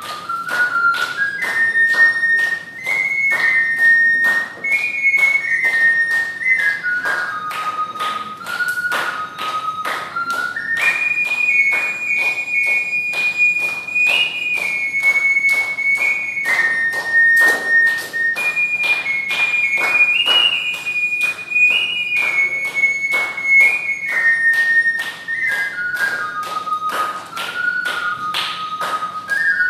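Ocarina playing a stepwise melody, its notes clear and held, over a steady beat of sharp taps at about three a second.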